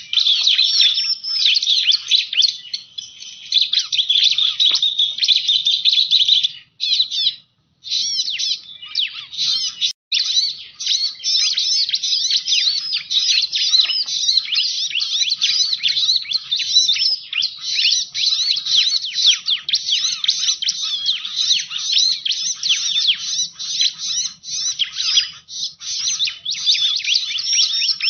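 Bar-winged prinia (ciblek) calling, a dense, rapid stream of high chirps, as used in a bird-trapping lure recording. The calling breaks off for about a second near the quarter mark and drops out very briefly a little later.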